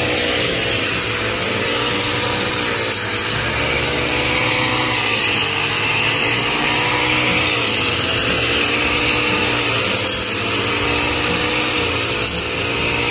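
Petrol brush cutter fitted with a blade, running at high speed as it cuts through standing rice stalks. Its engine note sags and recovers every few seconds as the blade bites into the crop.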